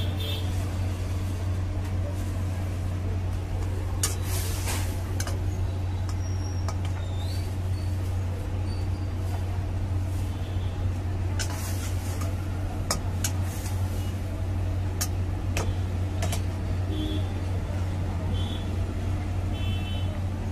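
A metal spatula scrapes and knocks against an iron wok every few seconds as chicken simmers in bubbling sauce, over a steady low rumble.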